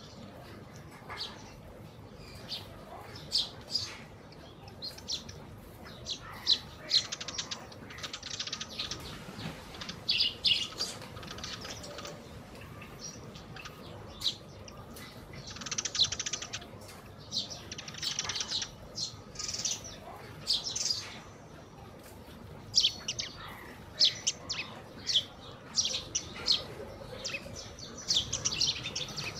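A feeding flock of Eurasian tree sparrows chirping, with many short high chirps in irregular clusters and occasional wing flutters as birds fly in and out.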